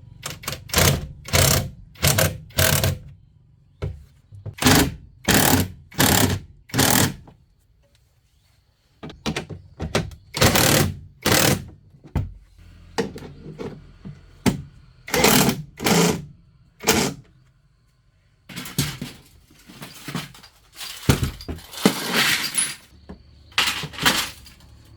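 Hammer blows struck in runs of about two a second, with short pauses between the runs, during work on a car.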